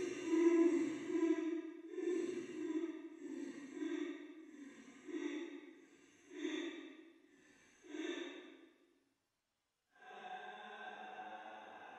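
A woman's voice weeping in a series of drawn-out sobbing breaths about a second apart, each fainter than the last, dying away about nine seconds in. After a second of silence a steady tone with several held pitches begins.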